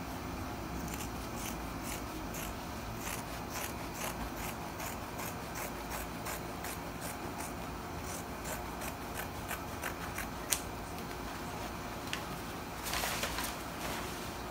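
Fabric scissors snipping through folded layers of cotton wax-print fabric along a curved cutting line: a run of crisp snips about two or three a second, with a sharper click just past ten seconds and a short rustle near the end.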